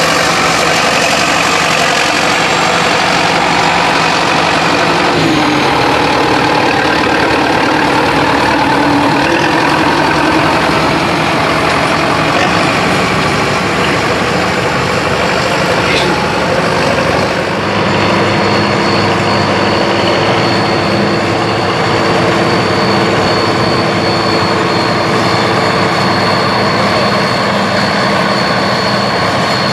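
Vintage Case farm tractor engines running steadily under load while pulling plows through the soil. About two-thirds of the way in, the sound changes to a different tractor, the Case-David Brown 1070, with a thin high whine over its engine.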